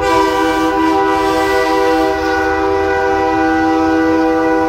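A semi truck's train-style air horn blowing one long, steady chord of several notes.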